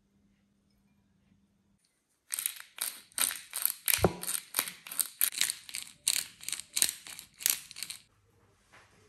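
Hand-twisted pepper mill grinding black pepper: a quick run of grinding strokes, about three to four a second, starting about two seconds in and stopping near the end, with one sharp knock about four seconds in.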